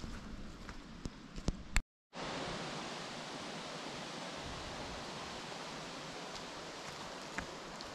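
A few footsteps on a forest trail, then, after a brief gap in the audio about two seconds in, a steady, even rushing noise.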